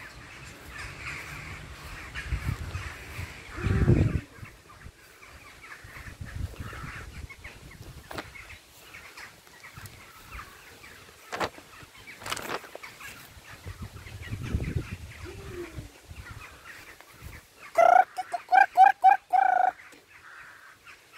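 Waterfowl calling: a quick run of about five loud honking calls near the end. Before it there is low rumble on the microphone and a few faint clicks.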